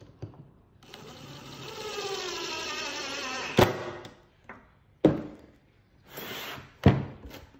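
DeWalt cordless drill driving a screw into a plywood drawer box to fix a caster. Its motor whirs for about three seconds, the pitch dropping as the screw seats, and it ends in a sharp knock. Two more sharp knocks follow, about a second and a half apart.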